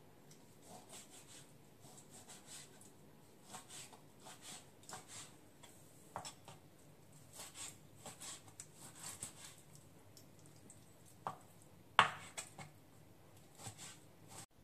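Kitchen knife slicing raw pork on a plastic cutting board: a run of soft cutting strokes with the occasional sharper knock of the blade on the board, the loudest about twelve seconds in.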